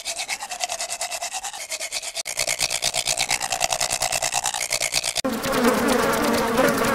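Toothbrush scrubbing sound effect: rapid back-and-forth brushing strokes, about ten a second. It changes character about two seconds in, and again about five seconds in, where it turns harsher and noisier.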